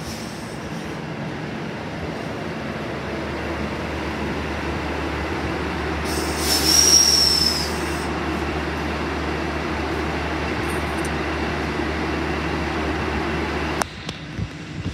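NSW TrainLink Endeavour diesel railcar running slowly past at close range, with a steady engine drone and rail noise. About halfway through there is one brief high-pitched wheel squeal that falls slightly in pitch. The sound drops off abruptly near the end.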